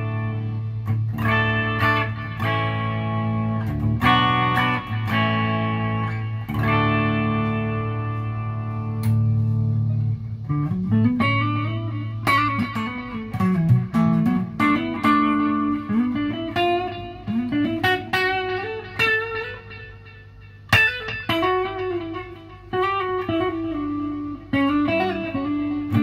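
Electric guitar, a PRS SC 594, played through a PRS MT15 valve amp with 5881 power tubes: ringing chords for about the first ten seconds, then single-note lead lines with string bends.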